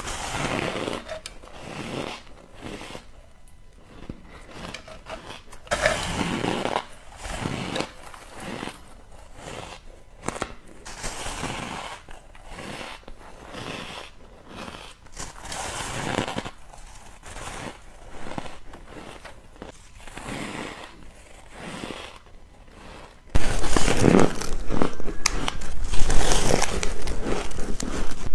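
Biting and chewing soft, powdery frozen ice: irregular crisp crunches. About 23 seconds in, the crunching becomes suddenly much louder.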